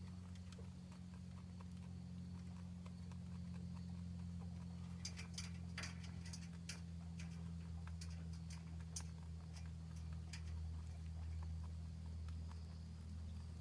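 Faint, scattered ticks and rustles as four-day-old English Angora kits shift about in their nest, busiest a third of the way in, over a steady low hum.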